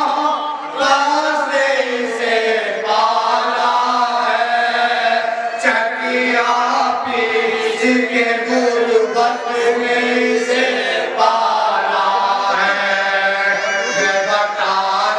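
Male voices chanting a noha, a Shia mourning lament, in long, drawn-out sung lines.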